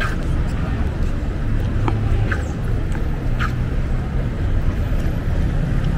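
Street ambience: a steady low rumble of road traffic, with a few short high chirps scattered through it.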